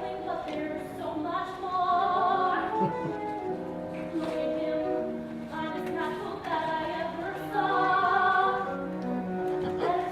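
A musical-theatre song sung over accompaniment, with long held, wavering vocal notes.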